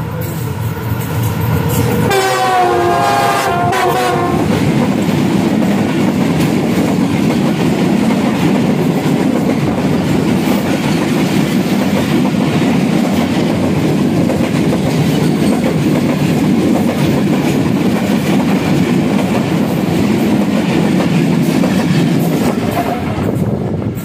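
An oncoming diesel locomotive's horn sounds as it passes close by, its pitch dropping about two seconds in and stopping about four and a half seconds in. The passenger coaches then rush past alongside with a loud, continuous rumble and rattle of wheels clattering over the rail joints.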